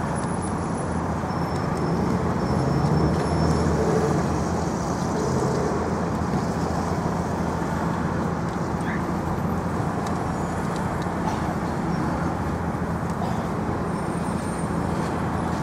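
Steady road traffic noise from passing cars, swelling a little a couple of seconds in.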